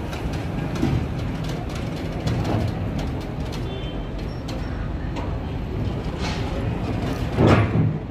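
Steady low rumble of a freight train in a rail yard, with scattered light clicks and one louder burst of noise near the end.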